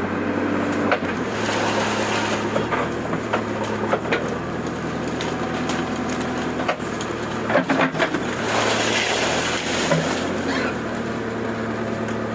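JCB 3DX backhoe loader's diesel engine running steadily under load, with sharp cracks and snaps of wood breaking as the thorn tree is torn out, several cracks close together about eight seconds in.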